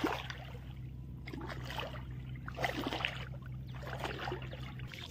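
Faint water sloshing and trickling in a shallow river, over a steady low hum that stops near the end.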